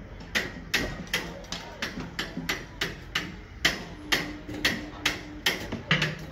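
Steady hammer blows on column formwork, about two or three strikes a second with a brief pause about three seconds in.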